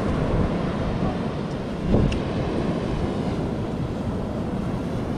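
Wind buffeting the microphone in a steady low rumble, with a short thump about two seconds in.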